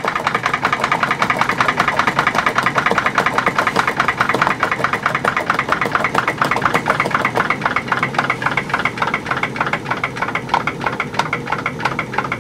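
Model PMR 1B1 steam drilling engine, a 1-inch-bore double-acting horizontal steam engine, running slowly with a quick, even beat. It is slowed because cold feed water pumped into the boiler has reduced the head of steam.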